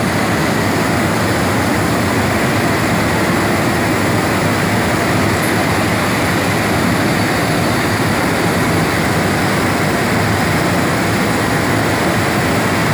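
Loud, steady industrial noise of a steel-plant melt shop as a crane-held ladle pours molten metal into a furnace. It is an even, dense rush with no distinct knocks or tones.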